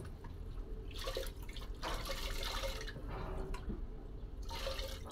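Water trickling and dripping in a few short spells.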